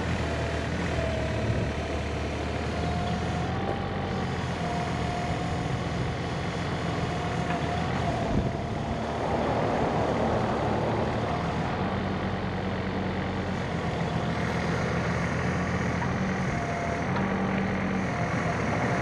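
Terex TC16 mini excavator's small diesel engine running steadily, with a thin wavering whine from the hydraulics that comes and goes as the boom, arm and bucket are worked.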